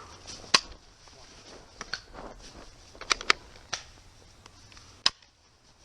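Sharp plastic clicks and snaps from Nerf pistols being handled, primed or fired: about eight separate clicks, the loudest about half a second in, and a quick run of three about three seconds in.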